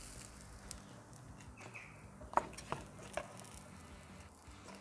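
Quiet handling noise: a faint hiss with three or four light clicks and taps about halfway through.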